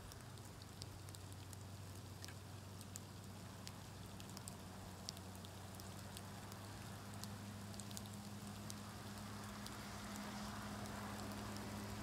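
Faint outdoor ambience in snow: a steady low hum under a light hiss that swells slightly near the end, with scattered tiny high ticks.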